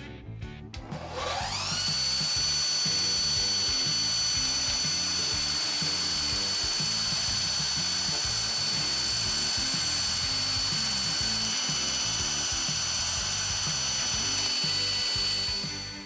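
Belt grinder starting up with a quickly rising whine, then running at a steady high whine while a steel knife pivot pin, spun in a cordless drill, is ground to length against the belt. It shuts off just before the end. Background music plays underneath.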